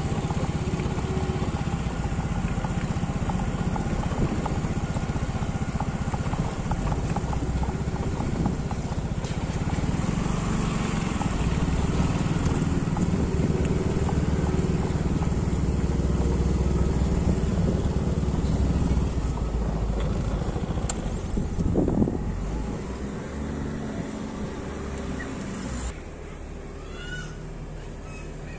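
A motor vehicle engine running steadily and fairly loud, dying away between about 22 and 26 seconds in.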